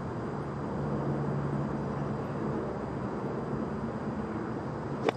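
A lob wedge strikes a golf ball once near the end, a single sharp contact. The shot is hit fat, the club catching the ground behind the ball. Before it, a steady low background hum.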